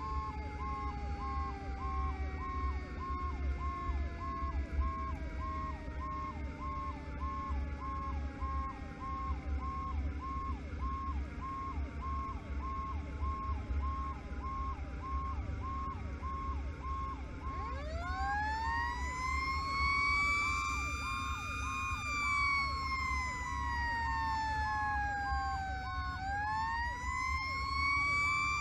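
Fire-rescue truck running lights-and-siren: an electronic siren yelps about twice a second, while a mechanical siren winds slowly down, is spun back up about two-thirds of the way through, coasts down and rises again near the end. A steady diesel engine and road rumble sits underneath.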